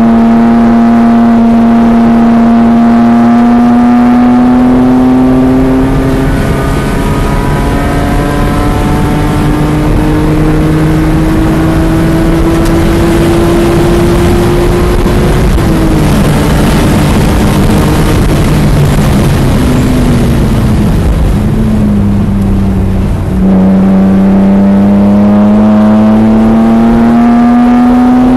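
BMW E46 M3's 3.2-litre S54 inline-six at full throttle, heard from inside the cabin: the engine note climbs, drops at an upshift about 6 seconds in and climbs again. About 15 seconds in the throttle comes off and the note falls and steps down as the car slows, then full throttle comes back suddenly about 23 seconds in and the note climbs again.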